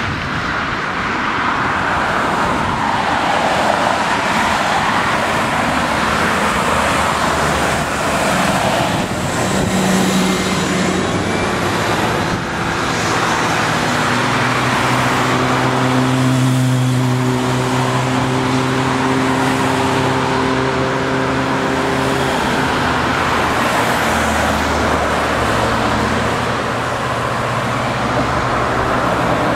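Road traffic: cars passing close by one after another, the tyre noise swelling and fading with each pass. Around the middle a steadier, deeper engine hum runs under it for several seconds.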